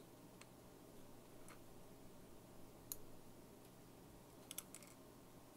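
Near silence with a few faint, sharp clicks of small model-kit parts being handled with tweezers, the sharpest about three seconds in and a quick cluster near the end.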